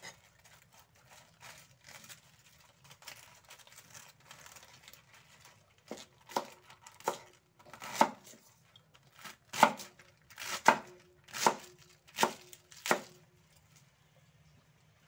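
Cleaver slicing napa cabbage on a chopping board: soft cutting and rustling at first, then from about halfway in a run of about ten sharp chops, roughly one every two-thirds of a second, that stops shortly before the end.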